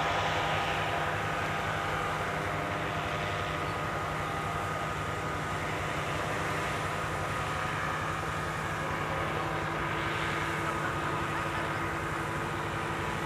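Steady drone of engines running, a low hum with a higher whine held over it, unchanging throughout.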